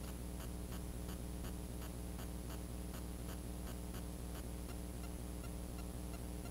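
Fishing reel being wound in to retrieve the lure, giving a faint, even ticking about four times a second that stops near the end. A steady electrical hum from the hat camera runs underneath.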